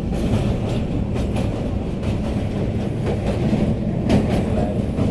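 Passenger train running, heard from on board: a steady rumble of wheels on rails with a few sharp clicks of the wheels passing over rail joints.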